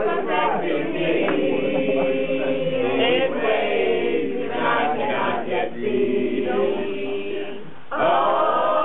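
A group of voices singing together in long held notes, with a sudden switch to busier, speech-like voices near the end.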